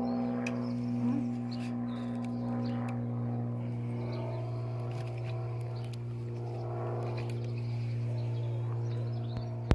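A steady low hum with several overtones, unchanging throughout, with a few faint clicks and one sharp click at the very end.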